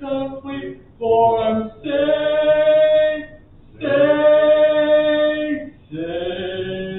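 Church congregation singing a hymn with men's and women's voices together, holding two long notes in a row.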